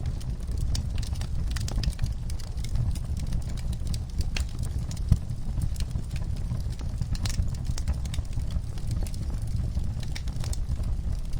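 Wood fire burning in a fireplace: a steady low rumble of flames with irregular crackles and pops, one louder pop about five seconds in.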